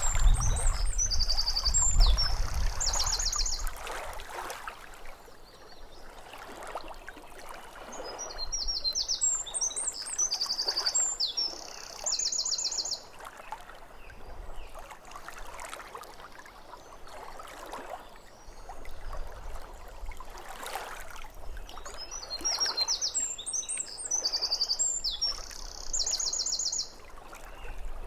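Small waves lapping at a lake shore, with a songbird singing the same short high phrase that ends in fast trills three times, about ten seconds apart.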